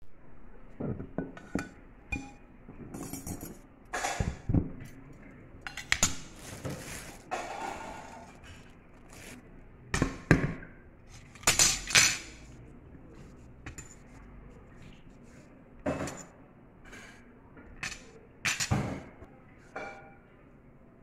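Ceramic plates and stainless cutlery knocking and clinking as they are set down and moved on a table: a string of separate clinks, the loudest about twelve seconds in, with a brief rustle about six seconds in.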